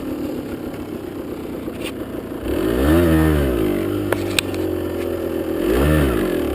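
Motocross bike engine running, revved up and back down about halfway through and again near the end, with two sharp clicks in between.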